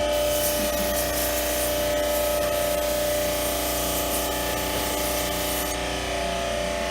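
Air-conditioner washing machine's pump running with a steady whine while its spray hisses. The spray stops near the end, leaving the pump's whine.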